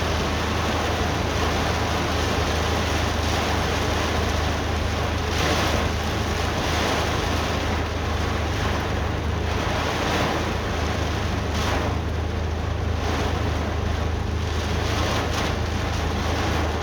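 Heavy rain pouring down, with wind gusting on the microphone as a steady low rumble and surges every few seconds.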